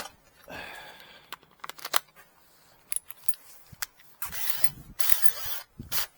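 Clicks, knocks and rattles of metal tools and parts being handled at a workbench vise, with a few short bursts of hissing noise in the second half.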